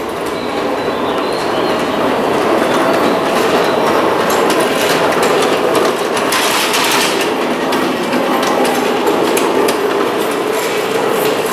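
A train running on rails, a steady rumble with rapid clicking of wheels over the track.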